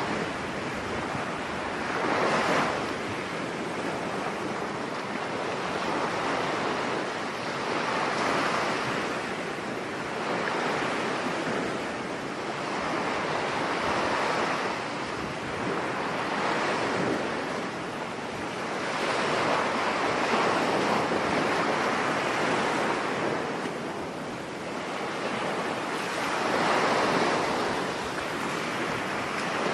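Stormy sea surf breaking and washing onto a beach, swelling every few seconds, with wind blowing over it.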